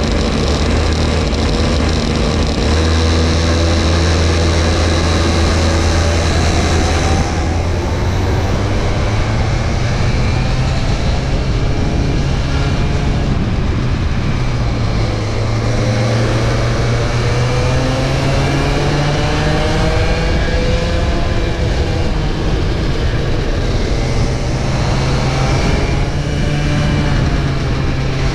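A pack of cadet-class two-stroke kart engines, with the camera kart's own engine closest. They hold a steady note at first, then from about seven seconds in their pitches rise and fall as the karts accelerate and brake through the corners.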